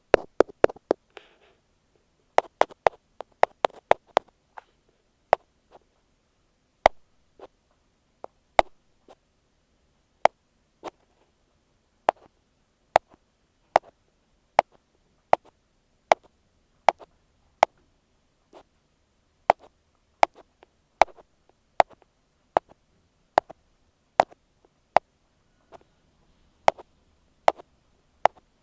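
Ear pick tapping directly on an earphone microphone: sharp, separate taps, in quick flurries near the start, then slower and irregular, roughly one or two a second.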